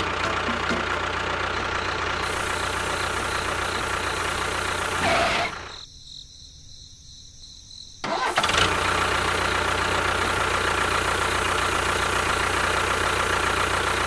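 Small electric motor of a DIY toy tractor or water-pump model running steadily. About five seconds in it cuts out for roughly two and a half seconds with a short burst at each edge, then runs again.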